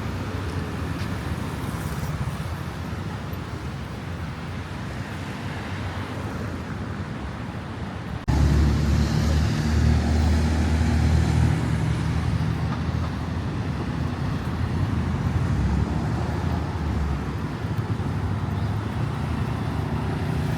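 Road traffic passing, a steady hum of car and motorbike engines and tyres. About eight seconds in it cuts abruptly to a louder, closer engine rumble that runs on steadily.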